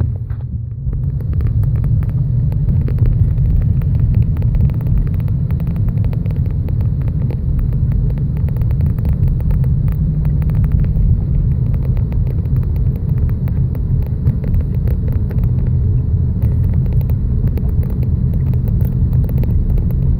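BMW N54 twin-turbo straight-six car under way, a steady low rumble of engine and road noise, with a brief dip in level just after the start.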